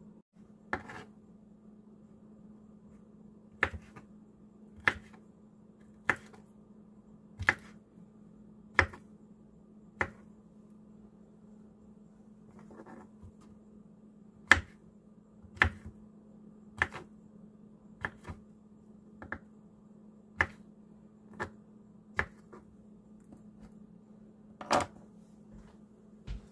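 Kitchen knife slicing firm chicken of the woods mushroom into strips, each cut ending in a sharp knock on the cutting board, roughly one a second with a pause midway. A steady low hum runs underneath.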